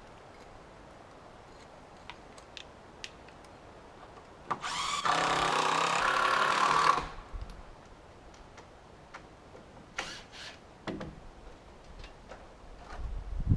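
Power drill running in one burst of about two and a half seconds, a few seconds in, with light taps and knocks scattered around it.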